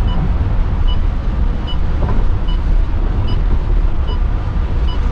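Thaco coach bus driving on a wet road, heard from the driver's cab: a steady low engine and road rumble with tyre hiss. A short high beep repeats about every 0.8 seconds.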